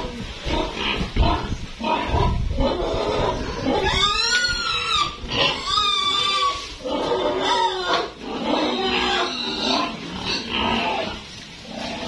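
Pigs grunting and squealing, with two loud, wavering squeals about four and six seconds in.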